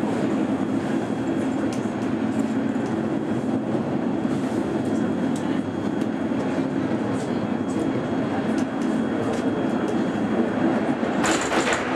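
Cairngorm Mountain Railway funicular car running uphill on its rails, heard from inside the cabin: a steady low rumble with scattered light clicks. Near the end there is a brief louder hissing burst.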